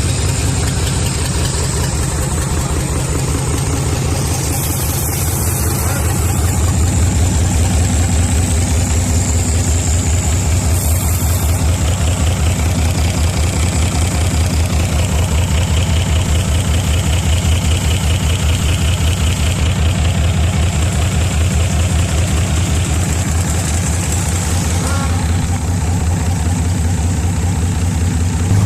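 Hino W06E non-turbo inline-six diesel engine idling steadily, with an even diesel clatter.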